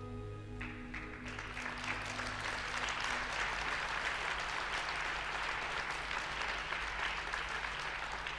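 The last held notes of the skating music fade out over the first few seconds as an arena audience breaks into applause, which grows louder and keeps going steadily.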